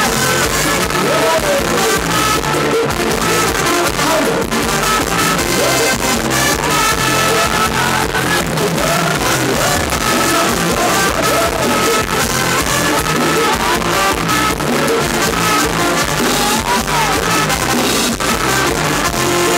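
Loud amplified live Thai ramwong band music with a steady dance beat and a singer's voice carrying the melody.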